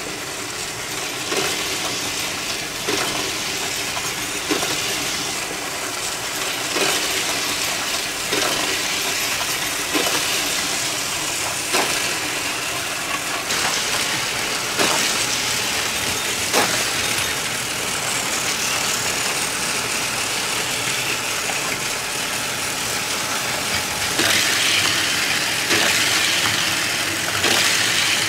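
Battery-powered Plarail toy trains running on plastic track: a steady motor whir with a sharp click about every one and a half seconds, a little louder near the end.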